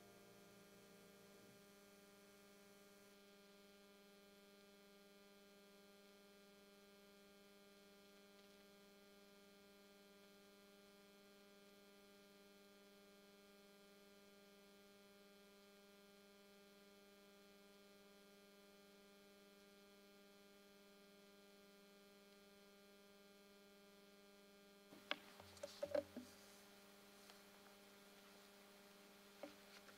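Near silence with a steady electrical mains hum. The last held piano note dies away in the first second or so, and a few faint clicks and knocks come about 25 seconds in, with a couple more near the end.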